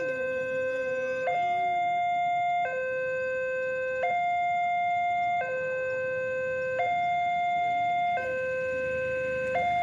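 Railway level-crossing warning alarm sounding a steady two-tone hi-lo signal, switching between a lower and a higher pitch about every second and a half; it signals that a train is approaching.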